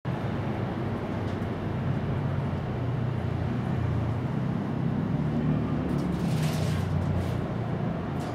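Steady low outdoor background rumble, with a brief hiss about six and a half seconds in.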